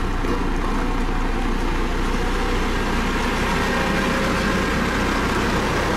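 Dynapac CC522 tandem asphalt roller's diesel engine running steadily as the machine rolls over fresh asphalt.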